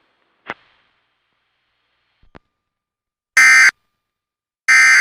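Emergency Alert System end-of-message signal: short bursts of SAME digital data tones, a rapid warbling buzz, two of them about 1.3 seconds apart starting about three and a half seconds in. A faint click comes about half a second in.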